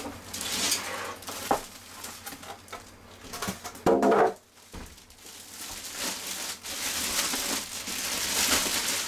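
Rustling and crinkling of cardboard, plastic wrap and packing foam as a computer case is worked out of its box, with a short, loud squeak about four seconds in.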